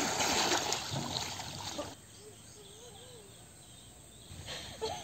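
Water splashing and sloshing, fading over the first two seconds and then cutting off. After that the water is quiet and a faint wavering animal call is heard.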